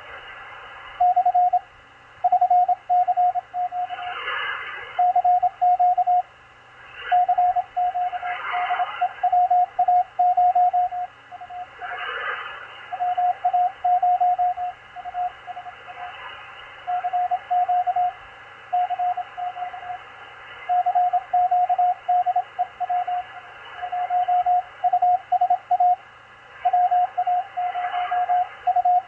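Morse code (CW) signal on the 20-metre amateur band heard through a Malachite DSP SDR receiver. It is a steady mid-pitched tone keyed on and off in dots and dashes, starting about a second in. It sits over band hiss, with a few brief swells of static.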